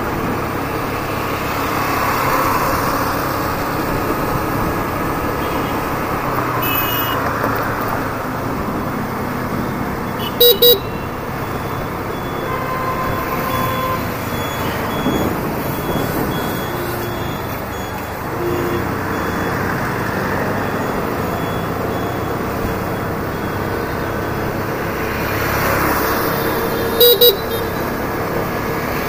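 Hero Destini 125 FI scooter's single-cylinder engine running steadily on the move, under wind and road noise with traffic around. A horn gives a quick double toot about ten seconds in and again near the end.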